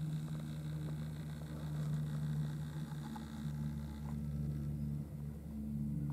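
A steady low mechanical hum with several pitched tones that swell and fade a little, over a faint hiss.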